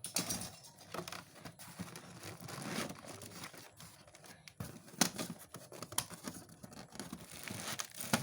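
Packaging being handled and torn open: irregular rustling, crinkling and tearing with scattered sharp clicks, one louder snap about five seconds in.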